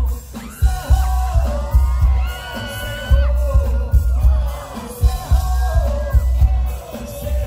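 Loud live pop music over a concert PA, with a heavy pulsing bass beat and a voice singing long held notes that slide between pitches.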